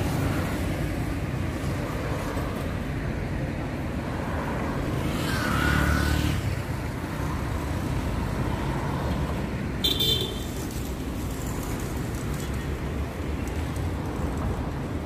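Road traffic on a city avenue: a steady rumble of cars going by, with one vehicle passing louder about six seconds in. About ten seconds in there is a brief high-pitched squeak.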